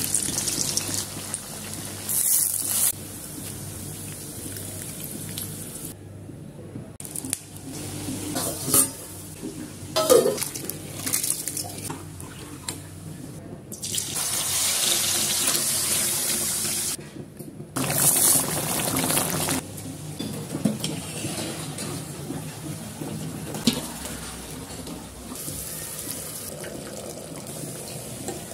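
Kitchen cooking sounds in several short cuts: oil sizzling in a wok as sliced onions fry and a spoonful of paste is dropped into the hot oil, swelling into loud hissing bursts now and then, with splashing water and pots being handled.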